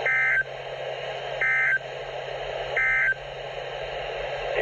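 Three short bursts of EAS SAME digital data tones from a NOAA Weather Radio broadcast, about 1.4 seconds apart, with steady radio hiss between them: the end-of-message code that closes the severe thunderstorm warning.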